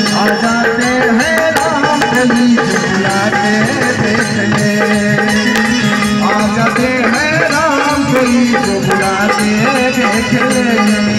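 Live Bhojpuri bhajan music: a tabla beat under a wavering melody held over a steady low drone, playing without a break.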